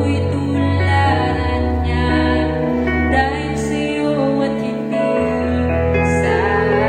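Slow, soft music with sustained chords and bass notes and a faint sung voice.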